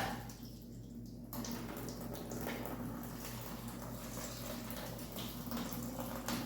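Water trickling and dripping out of a partly dismantled big-block Chevy 454 engine block, starting about a second in, over a steady low hum.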